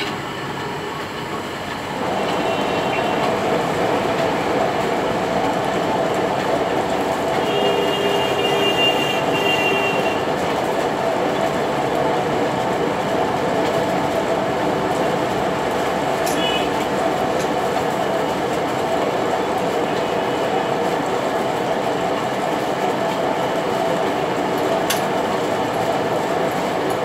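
Large metal lathe running steadily, louder from about two seconds in, with a brief faint high squeal about a third of the way through.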